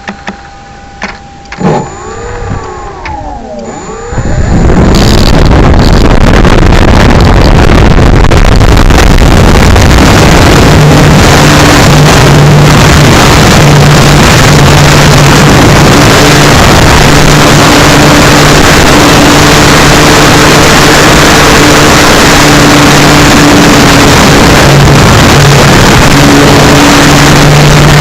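A few clicks and faint wavering tones, then about four seconds in the electric motor and propeller of an RC Cessna 182 come up to power. They run steadily as a loud, rushing noise close to the camera with a low hum, heard through a small onboard keychain camera's microphone that is overloaded by the motor and the rushing air.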